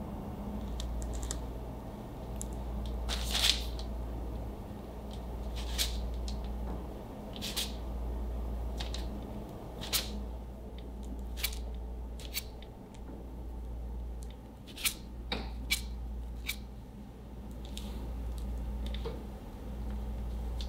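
Knife trimming the browned crust off baked sponge cake layers on parchment paper: a dozen or so short, crisp cutting and crackling clicks at irregular intervals, over a steady low hum.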